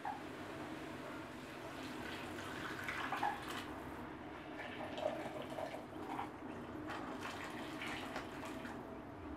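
Broth being poured from a glass measuring jug into a pot of chopped vegetables, splashing and trickling irregularly.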